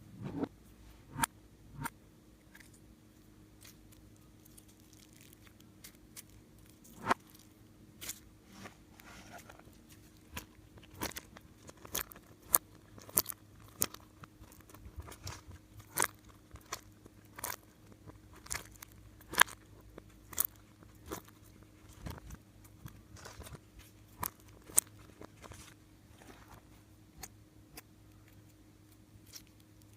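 Slime being handled, giving irregular sharp clicks and crackling pops, one to three a second, with the loudest snaps in the middle stretch. A faint steady hum runs underneath.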